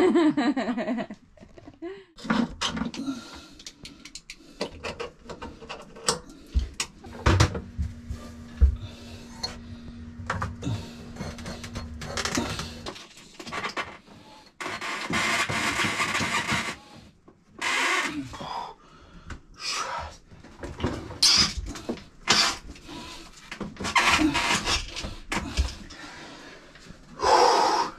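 Irregular knocks, clunks and scraping as heavy lead ballast pieces are worked loose and lifted out of a cramped wooden locker. A low steady hum runs for several seconds early on.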